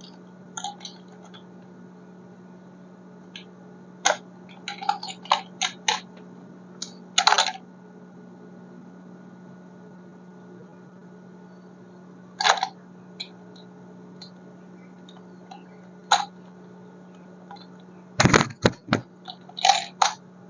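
Scattered clicks, taps and short rustles from handling plastic toy cars and their packaging, over a steady low hum. Two heavier knocks come near the end.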